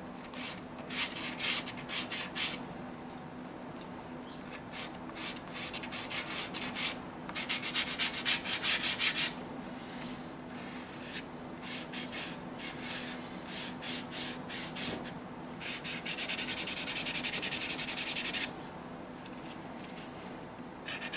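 Soft pastel stick scraping across toothy paper in spells of short strokes. The last spell, a fast back-and-forth run of about two and a half seconds near the end, is the loudest.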